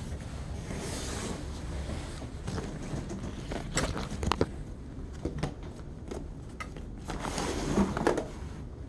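A fabric tote bag being handled and set down on a wooden table. There is rustling, with a few sharp clicks and knocks about four seconds in and more rustling with knocks near the end.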